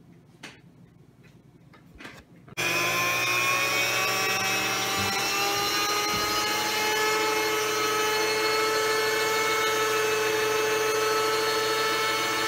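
Electric meat grinder switched on about two and a half seconds in, its motor running steadily with a whine that rises a little as it comes up to speed. A few faint clicks come before it starts.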